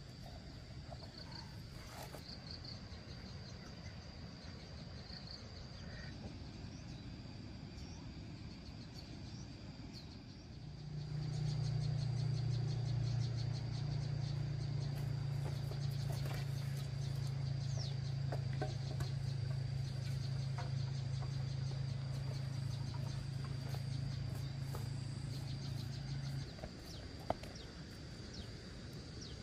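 Insects trill steadily and thinly in the background. About a third of the way in, a louder low steady hum starts, runs unchanged, and cuts off suddenly near the end.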